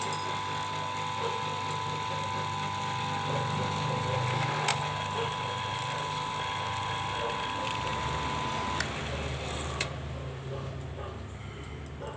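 Small homemade lathe for PVC pipe running, with a steady motor whine and a few sharp mechanical clicks. The whine cuts off about three quarters of the way through, leaving a lower hum.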